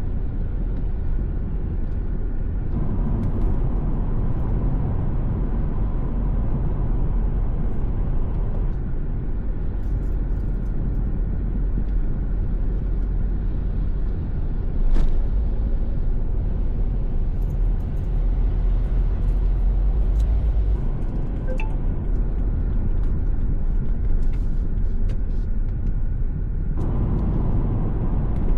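Steady low rumble of a car driving at expressway speed, tyre and engine noise, with a single sharp tick about halfway through.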